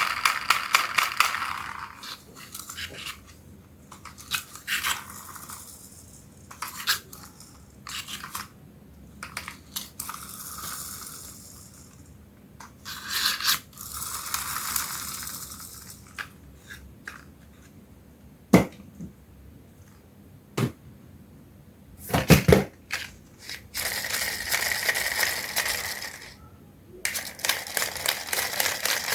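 Plastic toys and their packaging being handled: scattered clicks and clacks, crinkling and tearing stretches, and a few harder knocks in the middle.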